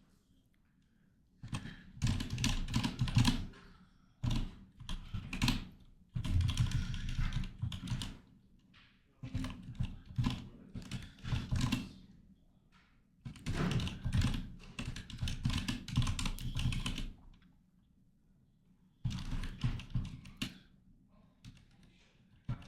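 Typing on a computer keyboard in six bursts of rapid key clicks, each lasting one to four seconds, with short pauses between them.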